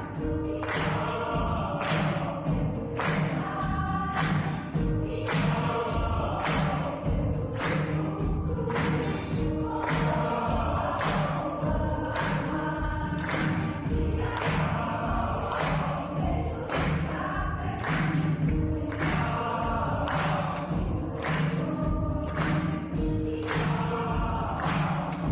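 A choir singing with accompaniment over a steady percussive beat.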